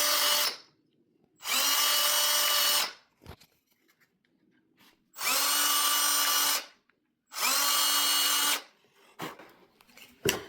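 Electric drill motor running in short bursts of about a second and a half: the end of one burst, then three more, each spinning up quickly to a steady whine and stopping. A few light knocks near the end.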